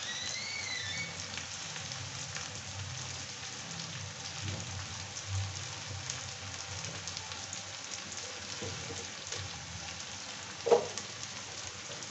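Sliced onions frying in oil in an iron kadai: a steady sizzle with fine crackling. A short, louder sound breaks in once near the end.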